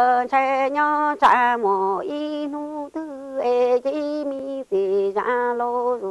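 A woman's solo voice singing unaccompanied in a chant-like Hmong sung verse, holding long steady notes with short breaths between phrases, near 3 s and again near 5 s.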